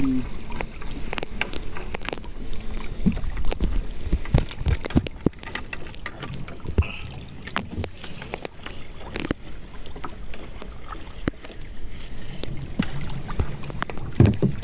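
Water lapping and slapping against a small outrigger boat's hull and bamboo float as it rocks on the swell, with scattered irregular knocks and a low rumble.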